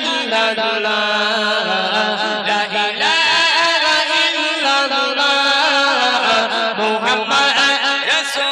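Male voices singing a Bangla gojol, an Islamic devotional song, through microphones, in a chant-like melody over a steady low drone.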